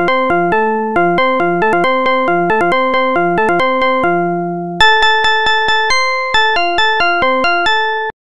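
Alarm tune from a computer alarm-clock program: a quick run of electric-piano-like notes, about four or five a second, with one note held about four seconds in and a louder phrase starting just before five seconds. It cuts off suddenly near the end.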